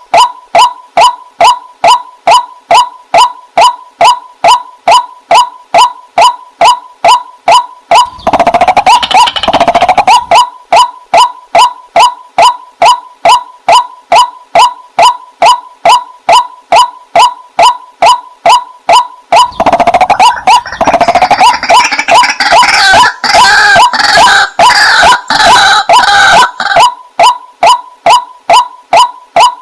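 Waterhen calling: a loud, steady train of short notes repeated evenly about two and a half times a second. About eight seconds in, and again from about twenty seconds in for several seconds, rougher and harsher calling joins in over the beat.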